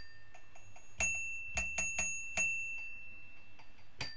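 Signal box block bell tapping out the 1-3-1 bell code, one ring, a pause, three quick rings, then one more, offering a train on to the next signal box. A single ring at a lower pitch comes right at the start.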